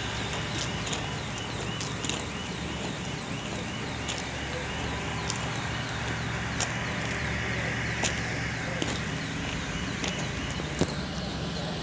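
Steady low drone of a diesel-driven straddle carrier (girder transporter) running as it moves with a precast concrete box girder, over a wash of site noise with a few sharp clicks. A faint repeated chirping fades out about three seconds in.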